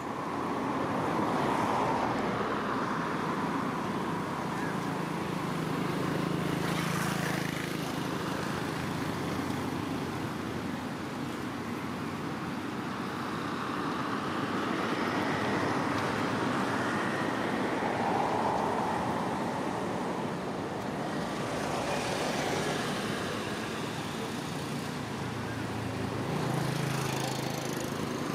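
Outdoor background noise of motorbikes and traffic, with an engine hum swelling about six seconds in and again near the end.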